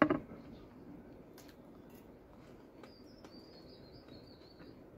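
A metal spoon clinks once, sharply, against a ceramic soup bowl, followed by a few faint utensil clicks. About three seconds in, a high, wavering chirp-like tone lasts under two seconds.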